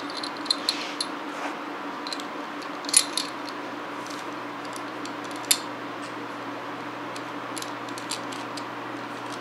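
Small steel parts of a Roth-Steyr 1907 pistol clicking and scraping together as the rotating barrel is fitted by hand into its cam block and slide: light metallic clicks, with two sharper knocks about 3 and 5.5 seconds in, over a steady low hum.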